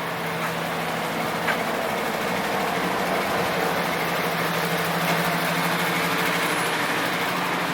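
Steady engine hum and road noise heard from inside a moving motor vehicle, with an even drone that doesn't change.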